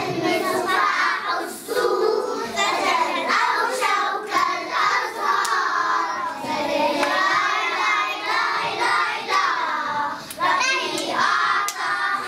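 A group of young children singing together in unison, with a few sharp hand claps among the singing.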